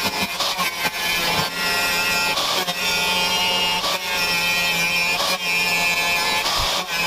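Angle grinder with a cutting disc slicing through rusty sheet steel on a VW bus panel: a steady, loud whine with a few brief dips as the cut is eased.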